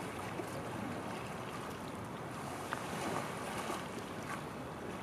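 Steady wash of moving water with some wind on the microphone, and a few faint, brief splashes from a kayak paddle's strokes.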